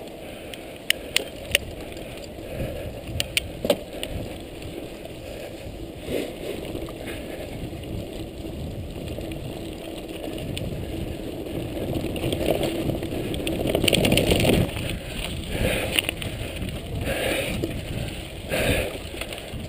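Mountain bike rolling over a dirt and stony trail: tyre noise and the bike rattling, with a few sharp clicks and knocks over bumps in the first few seconds, then a louder, rougher rattle and rumble in the second half as the surface turns rocky.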